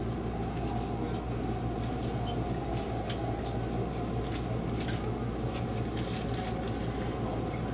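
Steady low hum inside a stationary 373-series electric train car, its onboard equipment running while it stands at the platform, with a few faint clicks.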